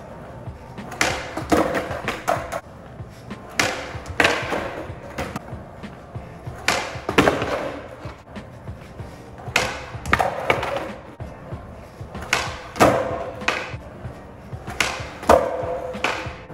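A skateboard on smooth concrete during laserflip (360 heelflip) attempts: sharp tail pops and the deck and wheels clacking down, often in close pairs every few seconds, each knock ringing briefly. At least one attempt is missed, with the board landing upside down.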